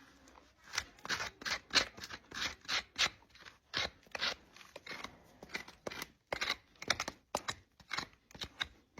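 Hoof-trimming tools cutting and scraping the horn of a draft horse's overgrown front hoof: quick repeated strokes, about two a second, with a couple of short pauses.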